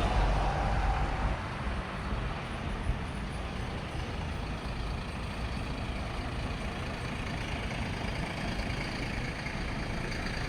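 Road traffic: a loud low rumble from a heavy vehicle close by dies away about a second in. A steady hum of traffic noise follows.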